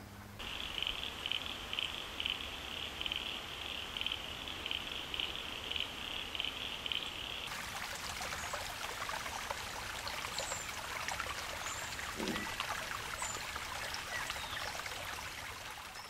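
A shallow creek trickling and splashing over a low rock ledge, with a few faint high chirps over it. Before that, for the first half, a steady high-pitched pulsing chorus of calls.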